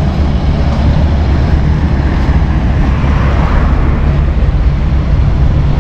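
Steady, loud low rumble of vehicle and road noise.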